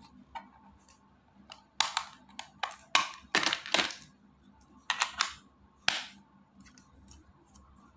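Hard plastic clicking and rattling of a Pxton C1 walkie-talkie's back cover and battery being handled and fitted: about ten sharp clicks spread over a few seconds, some of them loud.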